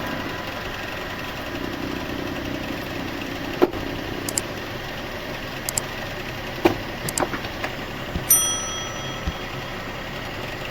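Sawmill machinery running steadily between cuts, with scattered knocks and clunks. About eight seconds in, a metal clank rings out briefly.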